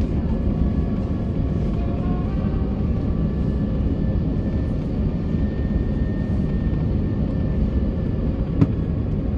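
Steady cabin noise inside an Airbus A380 descending on approach: an even low rumble of airflow and engines. A single short click near the end.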